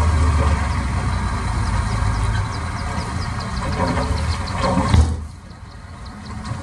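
Heavy machine's diesel engine running at idle with a steady low hum. A knock comes about five seconds in, and the sound then drops away sharply.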